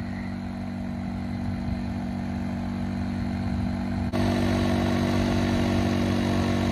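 A motor running steadily, an even droning hum that steps up in level about four seconds in.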